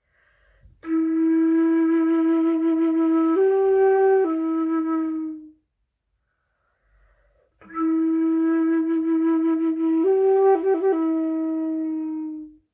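A solo wind instrument plays two long held-note phrases as an instrumental interlude between hymn verses. Each phrase lasts about five seconds, holds one note, steps up once and then returns to it, with a short silence between the two.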